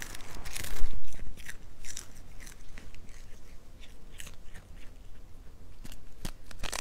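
A cat biting and chewing a small whole fish, close to the microphone: irregular crunches and crackles, loudest about a second in.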